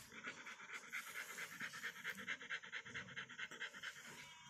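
Doberman panting quickly and evenly through its open mouth, a rapid run of short breaths that stops about four seconds in.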